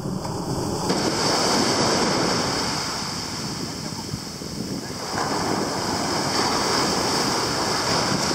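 Small waves breaking and washing up the sandy shore, with wind buffeting the microphone. The wash swells about a second in and again about five seconds in.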